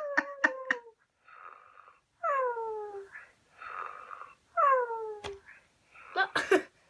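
Snoring in a regular cycle, three times over: a breathy in-breath, then a falling, whining out-breath. Near the end there is a sharp click and a brief clatter.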